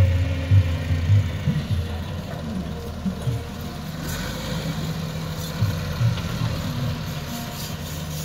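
Massey Ferguson 385 tractor's four-cylinder diesel engine running. It is louder and uneven for the first couple of seconds, then settles to a steadier, slightly quieter run.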